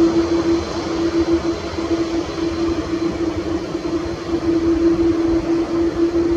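Twin-engine widebody jet airliner running on its landing roll just after touchdown: a loud, steady engine noise with a constant droning hum under it.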